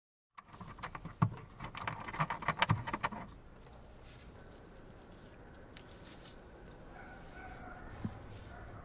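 Small metal and plastic parts of a radar-detector mount being handled and fitted together: a quick run of clicks, taps and knocks for about three seconds, then only faint handling noise.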